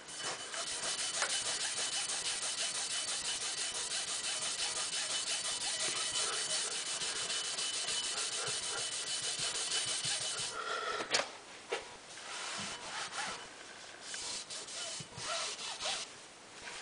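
Rusty steel rifle barrel being scrubbed by hand in fast, even back-and-forth strokes, lifting fresh rust. The scrubbing stops about ten seconds in, followed by a sharp click and then slower, broken rubbing and wiping.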